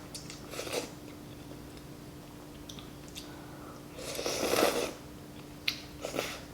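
Close-miked eating of wonton noodle soup: short bursts of chewing and mouth noise, with a longer, louder burst of eating noise about four seconds in and a sharp click shortly after.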